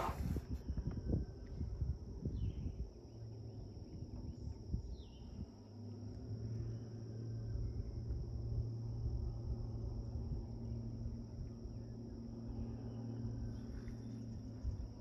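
Spring swamp ambience: a steady high-pitched insect trill, with a few short bird chirps in the first five seconds. Low rumbling at the start gives way to a low steady hum from about three seconds in.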